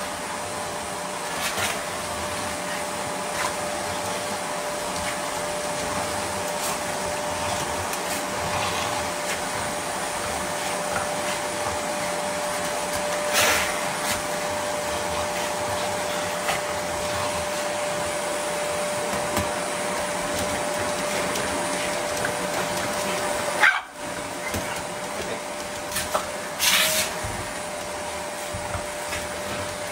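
Cordless stick vacuum running with a steady whine while a Boston terrier barks at it a few times and snaps at the end of its wand. About three-quarters of the way through there is a loud knock.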